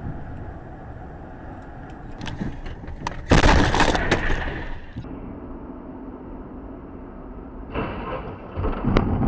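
A car crash: a sudden loud impact with breaking and cracking about three seconds in, which rings on for about a second over steady road noise.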